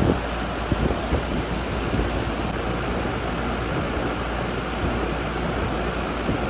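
Goodman 3-ton packaged heat pump running in cooling mode: the condenser fan blows air steadily over a constant low hum from the compressor.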